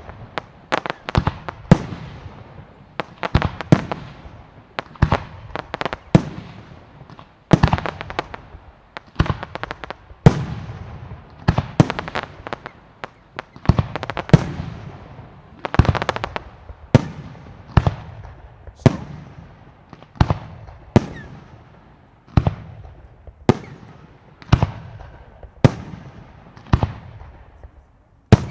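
Aerial fireworks bursting one after another in a steady run of bangs, roughly one a second with some coming in quick pairs, each bang trailing off in an echo.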